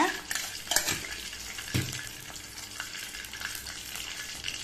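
Mustard seeds crackling and sizzling in hot sesame oil in a stainless steel kadai, the tempering stage of the cooking. A steady fine crackle runs throughout, with a couple of louder sharp pops in the first two seconds.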